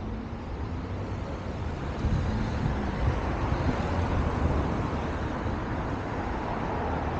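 Road traffic noise: a motor vehicle running on the road, getting louder about two seconds in.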